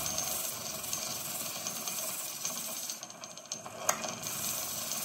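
Motorised flat abrasive disc running with a stainless steel watch case back held against it, giving a steady grinding hiss, with a short click about four seconds in.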